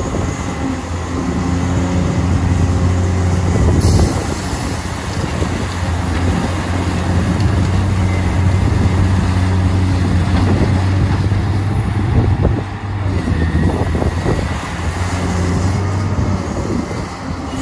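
Large Caterpillar hydraulic excavator's diesel engine running steadily under load with a deep, even hum while it digs and loads a dump truck. Scattered knocks of bucket, rock and steel come through, with a sharp one about four seconds in.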